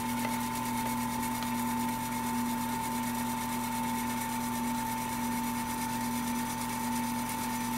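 Harbor Freight Central Machinery 10x18 mini wood lathe running with no workpiece, its spindle turning steadily at about 2,100 RPM on the second-highest belt setting. It gives a steady motor hum with a steady whine.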